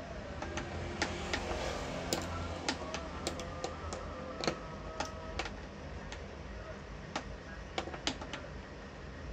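A plastic lighter hanging on a string, batted by a kitten's paw, clacking and tapping in irregular sharp clicks, a few louder knocks among them.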